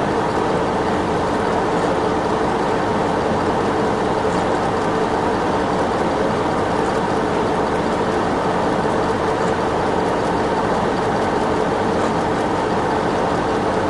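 Steady machine noise with a constant hum, loud and unchanging throughout.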